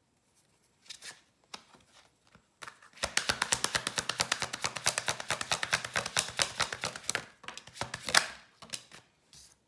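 A tarot deck being shuffled by hand: a fast run of card clicks, about ten a second for some four seconds, then a single sharper snap of a card near the end.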